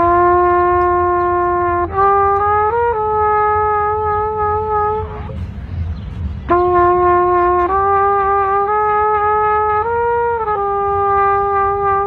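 Solo brass horn playing a slow melody of long held notes, with a few quick note changes. It stops for a breath about five seconds in, then starts the next phrase. A steady low rumble runs underneath.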